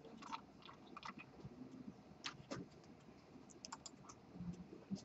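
Faint, scattered clicks and taps of a computer keyboard and mouse.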